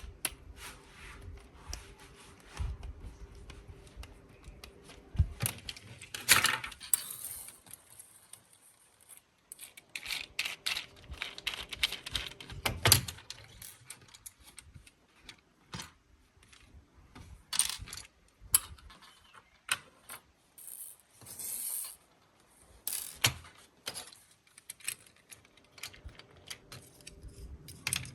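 Plastic parts of a transparent toy racing car clicking, tapping and rattling as they are handled and taken apart, with irregular small clicks and a few louder knocks and scrapes.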